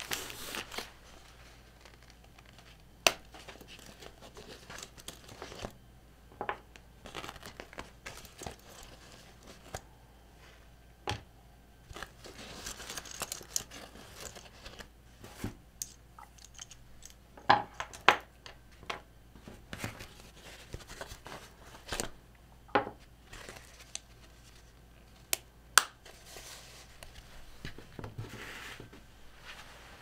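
Plastic packaging rustling and crinkling, with scattered sharp clicks and taps of small parts, such as keyboard switches and hand tools, being set down on a wooden desk.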